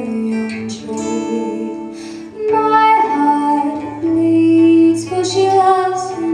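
A woman singing a slow English folk song, holding long notes, over acoustic guitar accompaniment.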